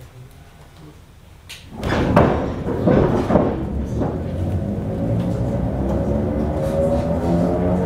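ER2K electric commuter train pulling away from a stop, heard from inside the car. About two seconds in come a burst of loud clunks and rattling. Then the traction motors' whine rises steadily in pitch as the train gathers speed.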